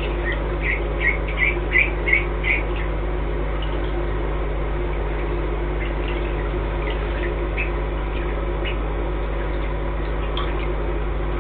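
Cayuga ducklings peeping: a quick run of short, high peeps in the first three seconds, then scattered single peeps, over a steady hum.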